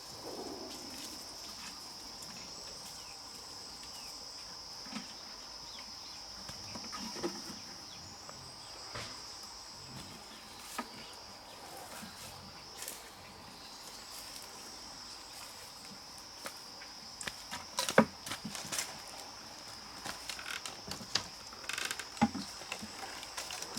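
Insects chirring: a steady high-pitched drone that goes on throughout. Scattered short knocks and clicks sound over it, several louder ones coming in a cluster about three-quarters of the way in.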